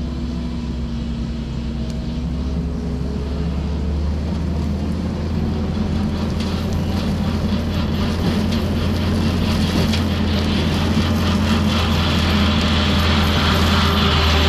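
Kubota SVL65-2 compact track loader's diesel engine running at working speed with its rotary brush mower cutting grass: a steady low drone that grows gradually louder as the machine comes closer.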